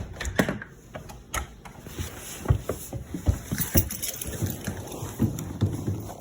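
Footsteps in snow, an irregular run of soft thumps, with wind noise on the microphone.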